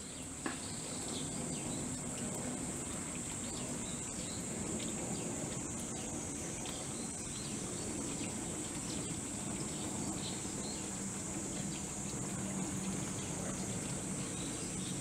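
A steady, high-pitched chorus of insects buzzing, with a low hum underneath.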